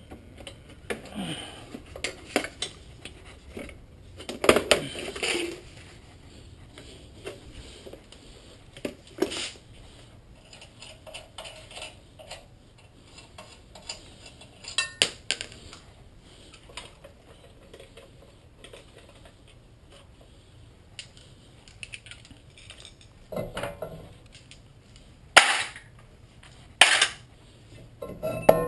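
Scattered metallic clinks and clanks of tools and brake parts being handled at a car's rear wheel hub as the loosened brake rotor is worked off. Two sharper clanks come close together near the end.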